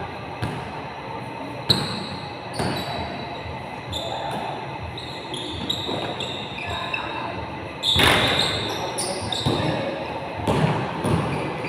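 Basketball bouncing on a gym court amid a pickup game, irregular thuds echoing in a large hall, with players' voices calling out; the loudest stretch comes about eight seconds in.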